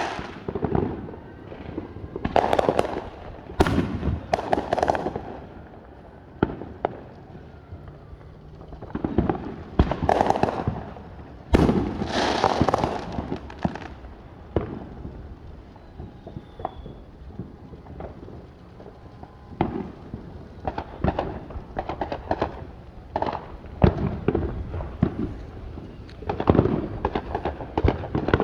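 Consumer fireworks going off: a string of sharp bangs and booms with crackling clusters in between, irregular throughout.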